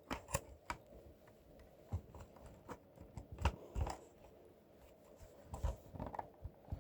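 Scattered small plastic clicks and knocks, irregularly spaced, as a cover is worked off a Wheelock RSS-24MCW fire-alarm strobe by hand.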